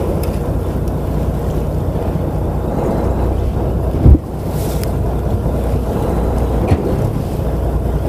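Steady low rumble of a fishing boat at sea, with wind buffeting the microphone and waves against the hull. A single loud knock sounds about four seconds in.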